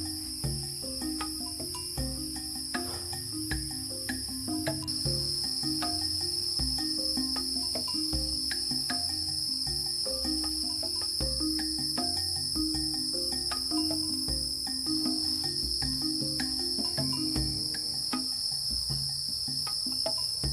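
A night chorus of tropical forest insects: a steady, high-pitched shrill trilling that grows louder about five seconds in. Underneath it, lower notes repeat roughly once a second, with scattered light clicks.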